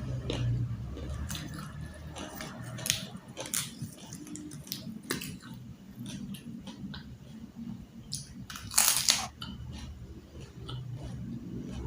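Close-miked eating: chewing and crunching crisp fried food, with scattered small clicks and crackles and one louder crunch about three-quarters of the way through.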